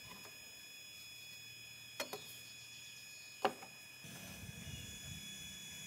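Two light clicks, about two and three and a half seconds in, as a carpenter square is set against a handsaw blade on a wooden board, over a faint steady whine.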